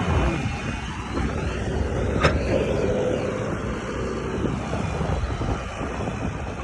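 Heavy construction machinery engine running steadily, with wind buffeting the microphone; a single sharp click a little over two seconds in.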